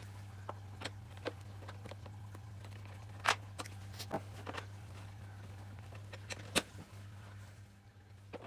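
Irregular light clicks and knocks of small parts and tools being handled while a motorcycle rear brake master cylinder is stripped, the sharpest about three seconds in and again near seven seconds, over a steady low hum.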